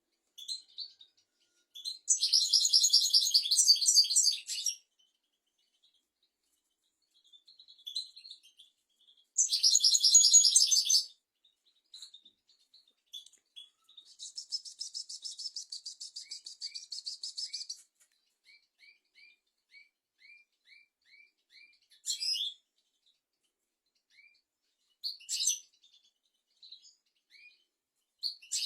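European goldfinch singing: two loud, fast, buzzy trills, then a long rattling run, a string of short thin down-slurred notes, and a few separate calls with pauses between.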